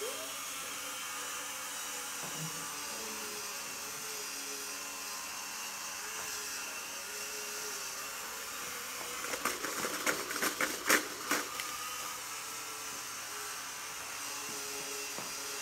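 Small wheeled robot's electric drive motors whining steadily as it drives, the pitch wavering slightly as it steers. About ten seconds in comes a short run of sharp clicks and clatters.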